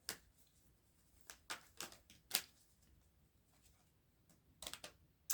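Tarot cards being handled: a few soft, scattered clicks and slides, in small clusters with quiet gaps between.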